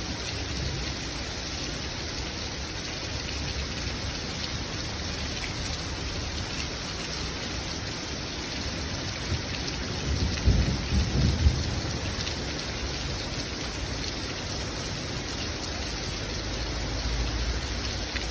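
Heavy rain falling steadily, with a low rumble of thunder about ten seconds in.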